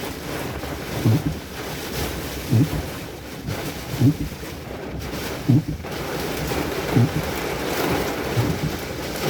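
Thunderstorm wind and rain noise, with wind buffeting the microphone and a short low thump repeating evenly about every second and a half.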